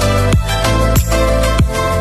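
Background music: an electronic track with held synth chords over a steady kick drum, about three beats every two seconds.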